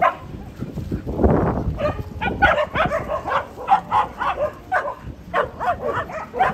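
A group of dogs barking again and again, several voices overlapping, with a brief rough rush of noise about a second in.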